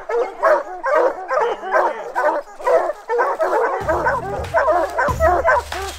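Hunting hounds barking in a rapid, continuous string of short yelps, several a second. Low background music comes in about four seconds in.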